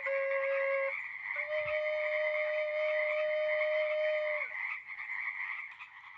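Dense, steady frog chorus, with long held notes over it that change pitch twice and end with a short downward slide; the whole fades toward the end.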